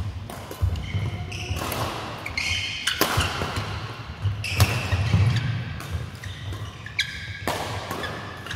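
Mixed-doubles badminton rally in a sports hall: sharp racket strikes on the shuttle roughly every second or so, with trainers squeaking on the court floor and footfalls thudding between shots.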